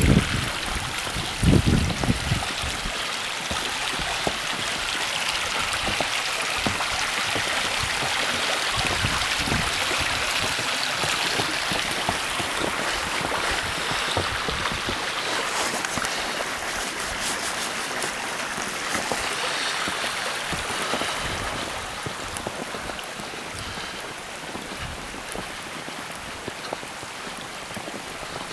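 Steady rush of flowing water, a stream running, with a couple of low thumps in the first two seconds.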